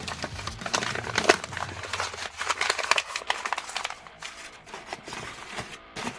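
Packing material crinkling and rustling as it is handled while an order is packed, busiest in the first few seconds and then quieter.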